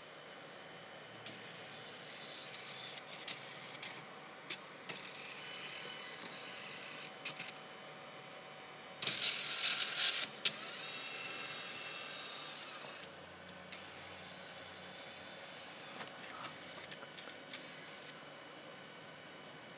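Robotic cartridge shuttle of an HP StorageWorks 1/8 tape autoloader moving inside the unit, its small motors whirring with scattered mechanical clicks as it turns and travels along its track. The loudest clattering comes about halfway through, followed by a steadier whir and then more clicks near the end.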